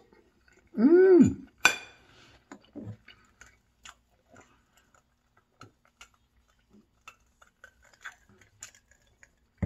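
Eating at a table: a short pleased hum that rises and falls about a second in, a sharp click just after, then scattered small clicks and clinks of a fork, plate and glass.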